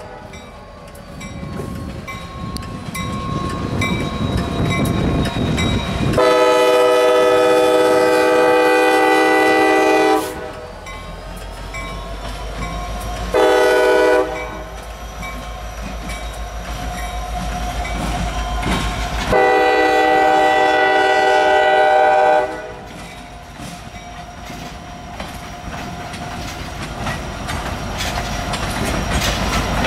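CSX freight train's diesel locomotive air horn sounding a long blast, a short one, then another long one, each a chord of several notes at once, as the train reaches a grade crossing. Between and after the blasts come the rumble of the locomotives and wheel clickety-clack as the train passes, with a crossing bell ringing in regular strikes.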